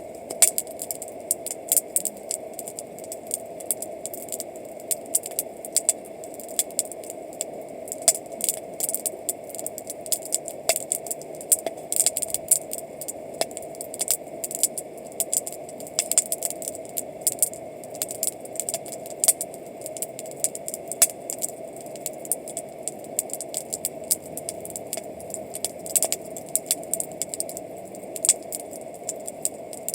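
Wood campfire burning, crackling with many sharp, irregular pops and snaps over a steady background rush.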